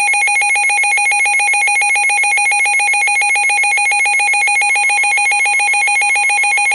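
Emergency Alert System two-tone attention signal, the 853 Hz and 960 Hz tones sounded together as one loud, steady, harsh beating alarm tone. It marks the start of an emergency alert, here a severe thunderstorm warning that is about to be read.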